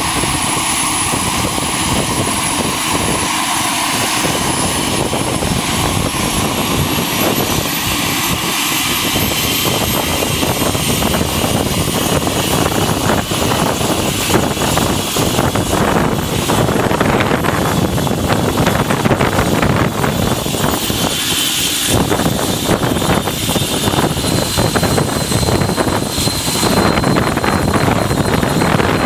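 Eurocopter EC120 helicopter running on the ground with its main rotor turning: a dense, steady rotor and turbine noise with a high turbine whine that climbs slowly in pitch, as the engine spools up.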